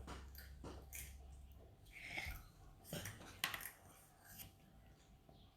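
Faint, scattered clicks and rustles of plastic LEGO Technic pieces being handled and fitted together, with the sharpest click about three and a half seconds in.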